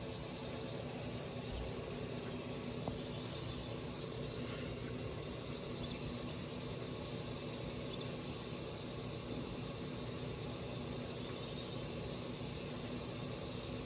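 Steady low machine hum under an even background hiss, with one small click about three seconds in.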